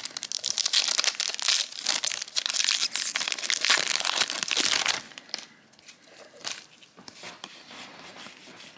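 Plastic wrapper of a trading card booster pack crinkling loudly as it is handled and torn open, for about five seconds. After that it drops to soft rustling and light handling of cards.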